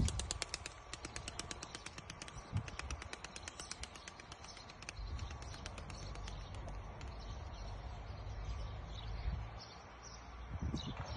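Pigeon wingbeats: a rapid, even run of wing flaps, about ten a second, that fades away over the first few seconds.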